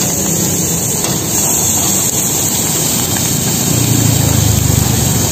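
Handheld butane blowtorch flame hissing steadily over squid and octopus sizzling on a flat-top griddle, with a low rumble swelling about four seconds in.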